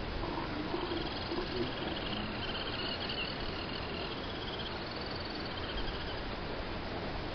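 Steady surf and wind noise with faint animal calls from northern elephant seals sparring in the shallows, the low wavering calls mostly in the first second or two.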